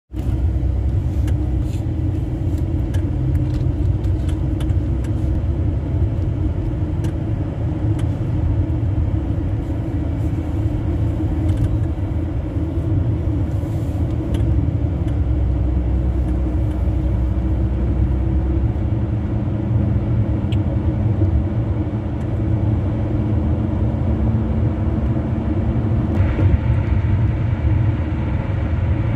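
Tyre and road noise inside a car at highway speed: a steady low rumble with a hum, from tyres rolling on saw-grooved concrete pavement. A brighter hiss comes in near the end.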